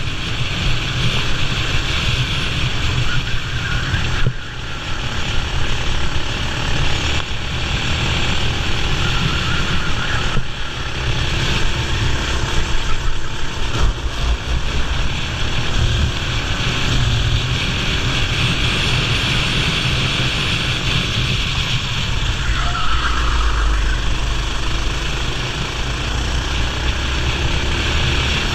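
Racing kart engine running hard in a race, with a steady rushing noise over it; the sound dips briefly about four, ten and fourteen seconds in.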